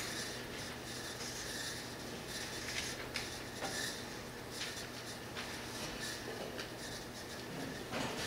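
Quiet room tone in a church sanctuary: a steady low hum with faint rustling and a few soft clicks and knocks.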